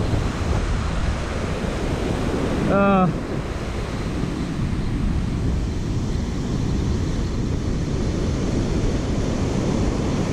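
Surf breaking and washing up a sandy beach, with wind buffeting the microphone. A short vocal exclamation comes about three seconds in.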